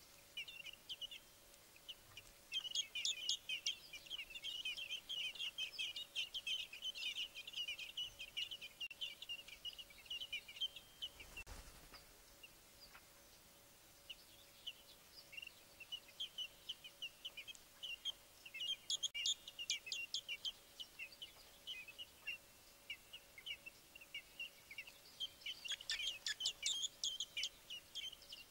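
Fieldfare nestlings begging: dense, rapid, high-pitched chirping in bouts, with a pause of a few seconds near the middle before the chirping starts up again.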